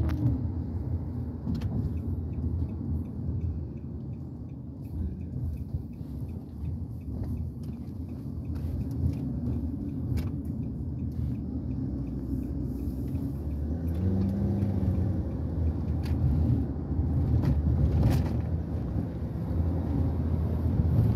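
Steady low road and engine rumble heard inside a moving car's cabin. A faint, regular ticking runs for several seconds near the start.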